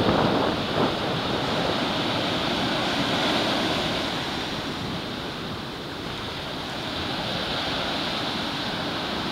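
Small, knee-high ocean waves breaking gently at the shoreline and washing up the sand. The surf swells and eases slowly, with some wind on the microphone.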